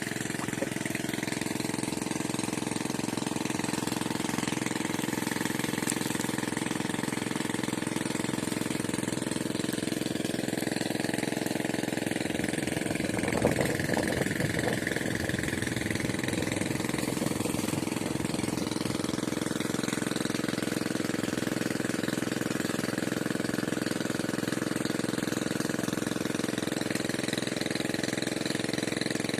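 A motor running steadily, a hum of several steady tones, with a short patch of knocking about halfway through.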